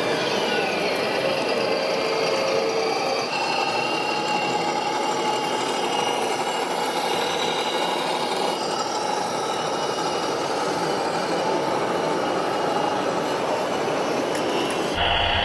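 Radio-controlled model trucks running: a steady mechanical whine of small electric motors and gearing over a noisy background hum. The sound changes abruptly about three seconds in and again near nine seconds.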